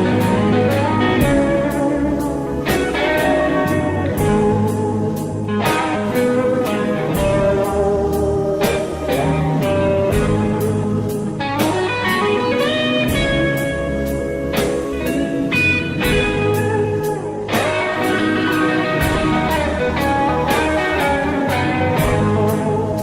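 Instrumental break in a blues-rock song: a lead guitar plays a melodic solo over bass and a steady drum beat, with no singing.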